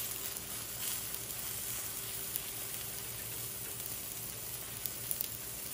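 Steak searing in oil in a cast iron skillet: a steady sizzle, with a few faint clicks.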